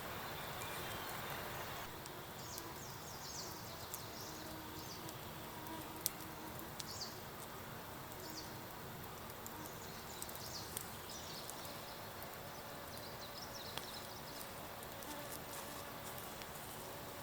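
Forest ambience: a steady background hiss with faint, short, high chirps that sound like small birds, and a few sharp clicks, the loudest about six seconds in.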